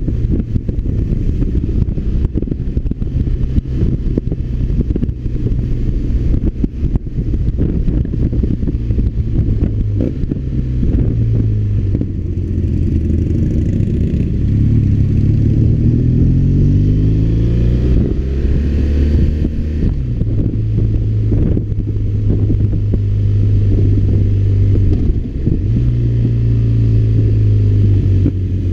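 BMW R1200RT's boxer-twin engine running while the motorcycle is ridden downhill. The engine note holds steady for long stretches, then rises, falls and steps in pitch with the throttle and gear changes, most noticeably in the second half.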